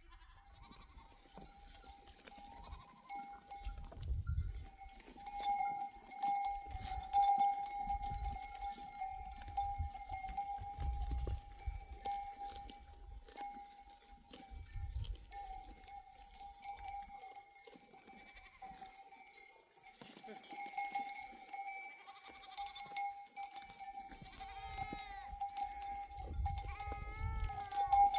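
Bells on a flock of sheep ringing on and on as the herd moves, with a few gliding animal calls near the end.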